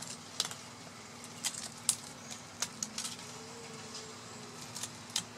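A knife cutting along the back of a large yellowtail snapper, making irregular sharp ticks and crackles as the blade works through scales and bone.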